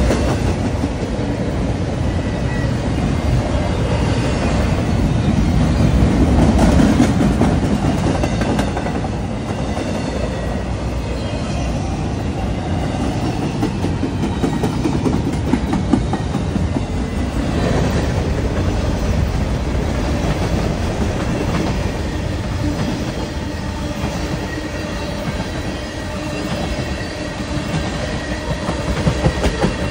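Freight train cars rolling past close by, a steady rumble with wheels clacking over rail joints and faint high-pitched wheel squeal at times.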